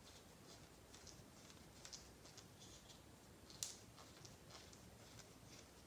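Faint, irregular clicks and small scrapes of a screwdriver turning a screw into a plastic RC buggy transmission case, with one sharper click about three and a half seconds in.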